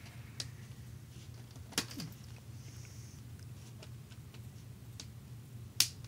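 Plastic laptop screen bezel being pried off by hand: sharp clicks and snaps as its catches let go, a few faint ones, one a little under two seconds in and the loudest near the end, over a low steady hum.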